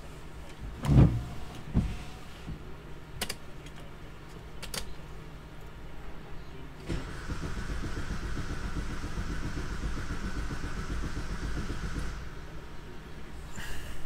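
A few knocks and clicks, then the diesel engine of a Vauxhall Combo B van is turned over on its starter for about five seconds without firing, and the starter stops. It is a crank-no-start, which the mechanic later traces to a loose, leaking injector.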